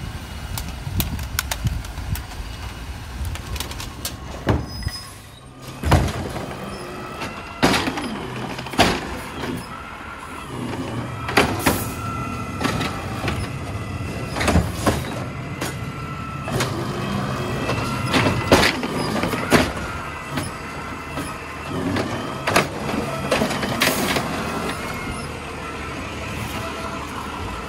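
Compressed-natural-gas automated side-loader garbage truck running, with repeated sharp knocks and bangs as plastic wheeled bins are handled and lifted. A steady whine comes and goes through the middle.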